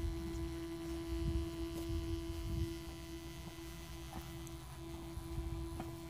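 A steady mid-pitched hum that drops out briefly about three-quarters of the way through, over an uneven low rumble.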